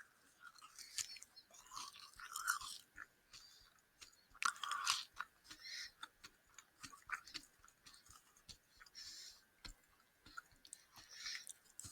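A person chewing a soft gummy marshmallow candy close to the microphone: irregular small mouth clicks and chewing noises, with louder bursts about two and four and a half seconds in.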